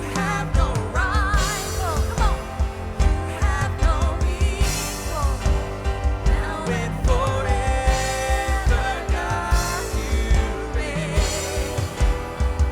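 Live worship band playing a slow-building song with drums and bass guitar under keys and guitar, and a singer's voice wavering over the top.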